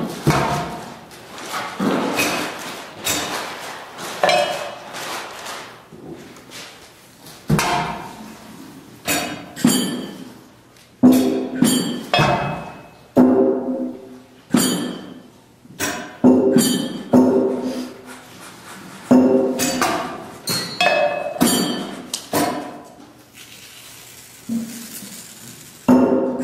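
Percussion ensemble playing sparse, irregular strikes: knocks, thunks and clinks on assorted objects and instruments, each with a short ringing decay, some with a clear pitch, spaced unevenly with pauses between.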